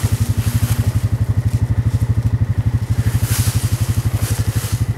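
Motorbike engine running steadily with a rapid, even low putter.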